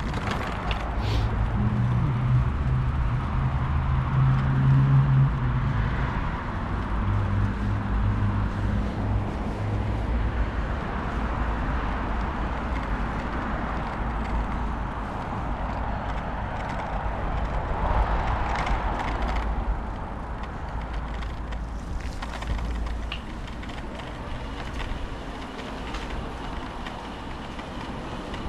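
Road traffic: a motor vehicle's engine hums close by for about the first ten seconds, over a steady rush of passing traffic that swells briefly past the middle, then eases.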